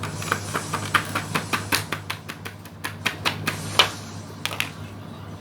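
Slime being squeezed and worked by hand, giving a quick, irregular run of sharp clicks and pops that stops a little before the end.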